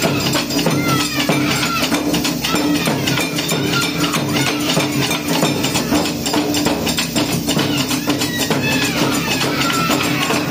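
Japanese taiko drums played by an ensemble: large barrel drums on wooden stands and small rope-tuned shime-daiko, struck with wooden sticks in a fast, driving rhythm of many strikes.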